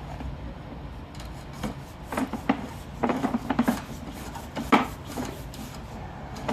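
Scraping and rubbing with irregular knocks from a sewer inspection camera head being pushed along inside a drain line, busiest in the middle of the stretch.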